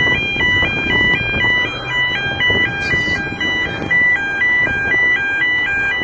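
Lift bridge's electronic warning alarm sounding while its barriers are down, a shrill tone stepping rapidly back and forth between high and low pitches, over a steady background rumble.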